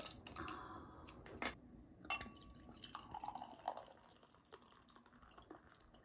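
A glass beer bottle is opened with a click and a short hiss of escaping gas. Beer is then poured from the bottle into a glass, splashing and foaming, the pitch of the pour rising as the glass fills.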